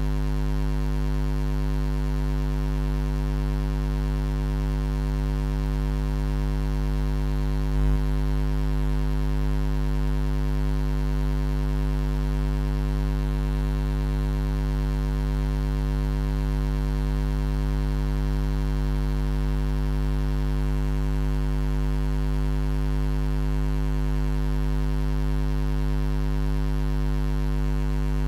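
Steady low electrical hum, like mains buzz, with many overtones and no change in pitch or level throughout. There is one brief click about eight seconds in.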